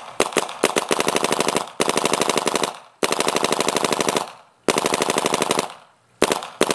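Vicious Geo 2 electronic paintball marker dry-firing through its stock Shaft4 barrel. A few single shots come first, then four rapid strings of about a dozen shots a second, then a few more single shots near the end.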